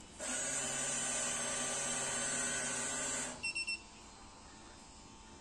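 Sanitary napkin vending machine's dispensing motor running for about three seconds as it pushes out a napkin, then three short beeps from the machine.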